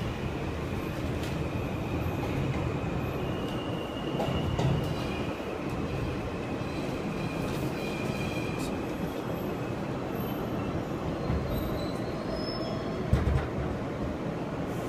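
R160 subway car running through a tunnel, heard from inside: a steady noise of wheels on rail with a faint, intermittent high wheel squeal, and a single knock about 13 seconds in.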